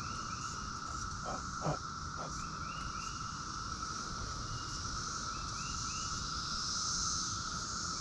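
Steady drone of a Brood X periodical cicada chorus, with a higher hiss over it that swells a little near the end. A short call repeats in groups of two or three every couple of seconds, and there is a brief thump about two seconds in.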